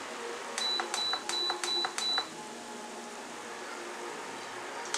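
Induction cooktop's touch controls beeping five times in quick succession, each a click and a short high beep, then once more near the end. Under them runs the steady sizzle of potato sticks deep-frying in oil.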